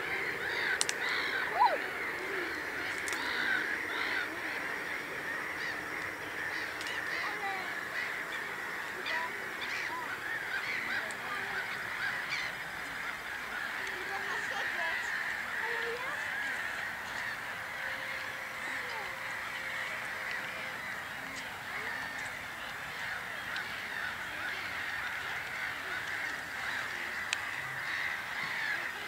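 Steady, dense chorus of many small animal calls, with one short sharp sound about a second and a half in.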